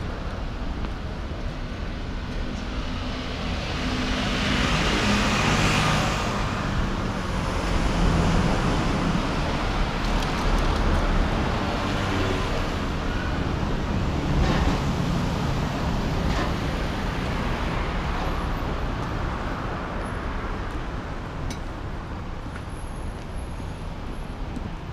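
Road traffic going by on a city street: a steady rush of cars with several louder swells as vehicles pass, easing off toward the end.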